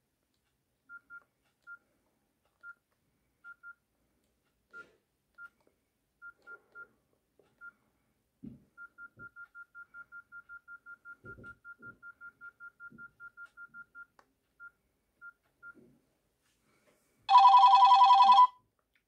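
Nokia 6680 mobile phone key tones: short single beeps at one pitch, first at uneven intervals, then a quick even run of about five a second, with faint knocks of the keys being pressed. Near the end a ringtone starts loudly, plays for a little over a second and cuts off.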